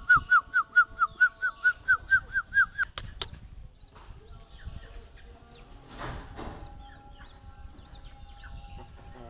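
A bird chirping in a rapid run of short, repeated, arching notes, about five a second, which stops about three seconds in. Then come two sharp clicks and, about six seconds in, a brief rustle.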